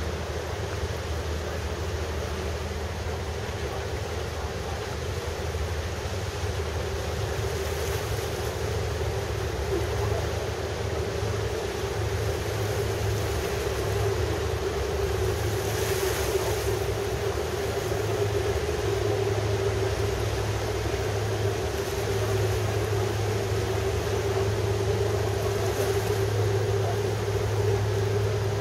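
Steady low hum of ship and harbour-boat engines over a wash of water and wind noise, growing a little louder in the second half.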